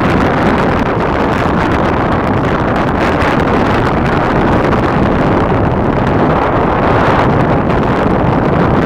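Wind buffeting the microphone: loud, steady wind noise.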